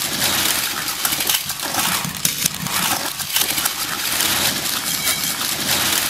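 Dozens of Thomas & Friends toy trains pouring out of a bag onto a heap: a dense, continuous clatter of the engines and cars knocking and tumbling against one another.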